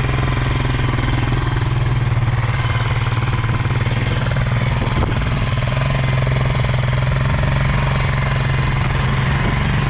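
Honda Rancher ATV's single-cylinder four-stroke engine running at a steady low throttle with a fast, even pulse, as the quad rolls slowly through shallow river water.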